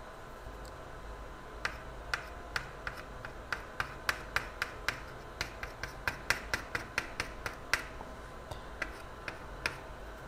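Soldering iron working fresh solder and flux onto the cluster board's old LCD ribbon traces: a run of sharp little clicks and pops, irregular and thickest in the middle at two or three a second, thinning toward the end.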